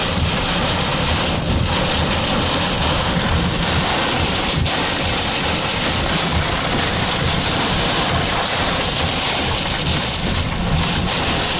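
Heavy wind-driven rain and strong easterly wind beating on an armoured storm-chase vehicle, heard from inside the cabin as a steady, loud noise.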